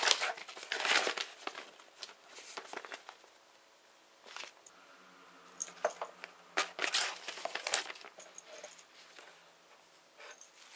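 Plastic wrapping crinkling and rustling in irregular bursts as a cat paws and noses at a plastic-wrapped water fountain in its cardboard box, with a quieter lull partway through.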